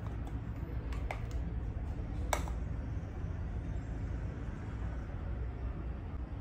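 Steady low background rumble with a few faint clicks and taps, about a second in and again just past two seconds, from a Maybelline Fit Me loose-powder jar and makeup brush being handled.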